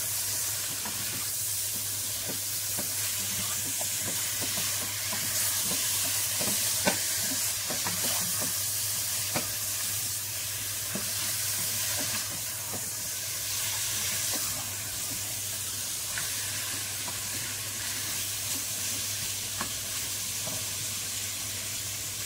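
Raw chicken pieces sizzling in hot oil with fried onions and spices in a nonstick pot, while a spatula stirs them and scrapes the pot with scattered clicks, browning the meat for biryani.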